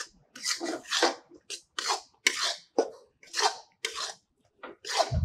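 Metal spatula scraping and stirring thick gram-flour and maida paste in a metal kadai, in rhythmic strokes about two a second: the flour being roasted in ghee toward brown for halwa. A dull thump near the end.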